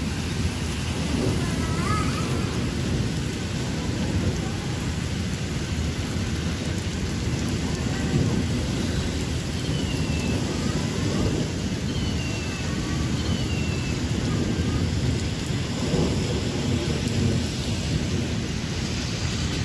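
Heavy rain falling steadily, with a constant low rumble underneath.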